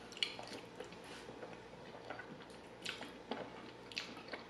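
Faint, wet mouth clicks and smacks of someone eating Jollibee spaghetti, scattered through as the noodles are drawn in and chewed.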